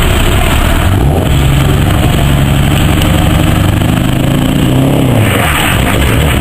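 Heavy truck's diesel engine pulling hard under acceleration. Its note comes in about a second in, climbs slightly, and drops away about five seconds in.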